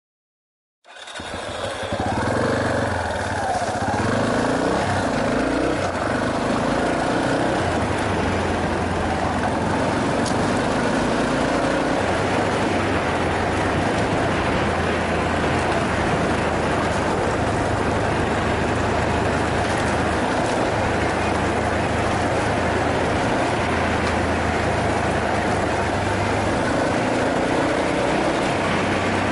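Yamaha Serow 250's air-cooled single-cylinder four-stroke engine running as the motorcycle is ridden on a dirt road, under a steady rush of wind and road noise. The sound starts abruptly about a second in, and the engine's pitch rises and falls over the first several seconds, then runs steadily.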